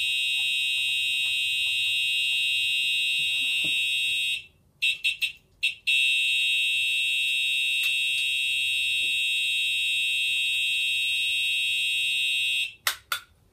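Simplex TrueAlert horn strobe sounding a loud, steady electronic horn tone in continuous mode. About four seconds in it cuts out, gives three short blips and resumes. Near the end it stops with a few more short blips as the alarm system is reset.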